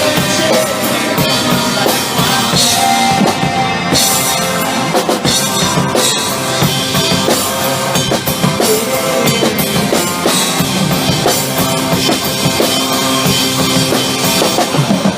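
Live rock band playing an instrumental passage, led by a full drum kit with kick drum and snare.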